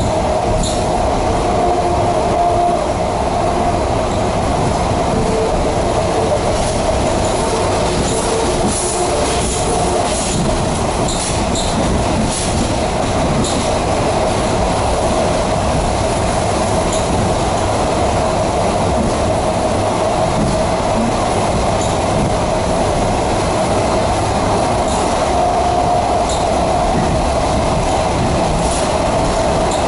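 ED4MK electric multiple unit running along the line, heard from inside the carriage: a steady rumble of wheels on rail with a continuous mid-pitched hum, and occasional light clicks.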